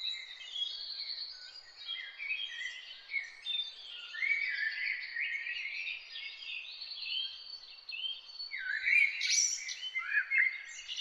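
Several songbirds singing and chirping at once, a dense chorus of overlapping short whistled notes and trills over a faint steady background hiss, with the loudest calls near the end.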